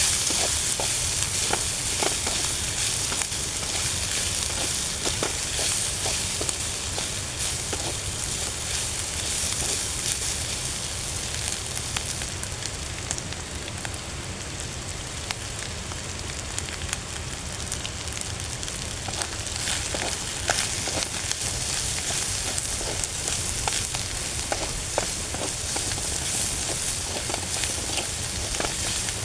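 Food frying with a steady sizzle and scattered crackles.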